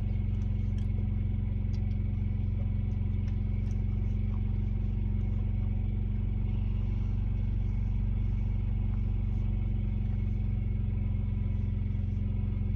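Truck engine idling steadily, a low even hum heard from inside the cab, with a few faint clicks over it.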